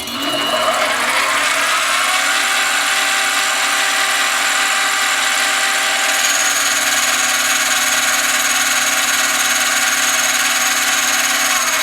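Harbor Freight 7x10 mini lathe running under power feed, the carriage driven by the engaged half nut for a surfacing cut on 6061 aluminum tubing. A steady motor-and-gear whine with several held tones that rises in pitch as it spins up at the start and stops near the end.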